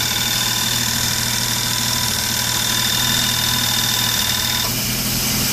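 Belt-driven York compressor pumping on-board air, driven off a Jeep engine at idle: a steady engine hum with a high whine on top that cuts off near the end.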